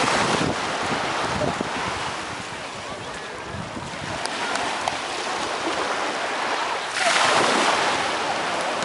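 Small ocean waves washing up onto the sand at the water's edge, the surf swelling at the start and again about seven seconds in as a wave breaks close by.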